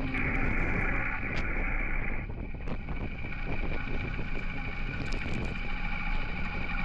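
Honda H'ness CB350 motorcycle running while being ridden, its single-cylinder engine under steady wind noise on the microphone.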